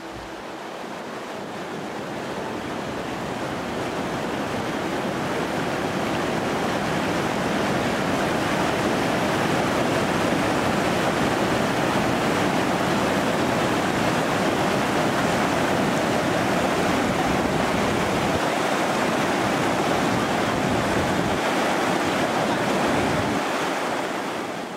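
Shallow mountain river rushing over boulders in rapids: a steady rush of white water that fades in over the first few seconds and starts to fade out near the end.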